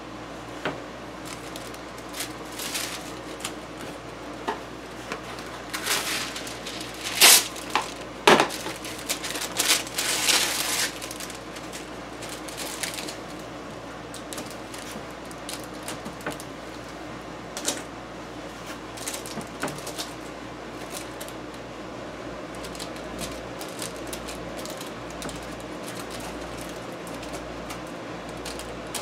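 Hands working on a turntable cabinet during glue-up, fitting a spring clamp and plastic sheet: scattered clicks and knocks, with two sharp, loud knocks around seven and eight seconds in and a burst of rustling and clatter a couple of seconds later.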